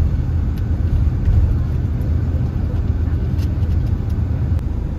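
Steady low rumble of road and engine noise inside a moving vehicle on the highway.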